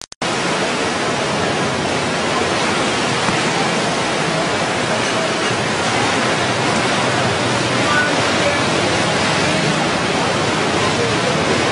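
Floodwaters of the swollen Ganges rushing in a steady, unbroken torrent.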